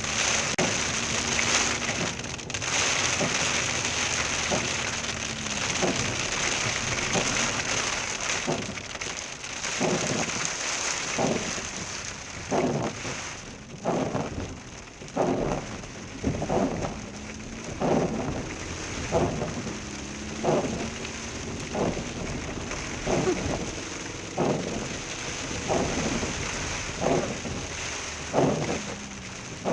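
Hail and heavy rain drumming steadily on a car driving through a hailstorm. From about nine seconds in, a regular stroke comes roughly once a second over the din.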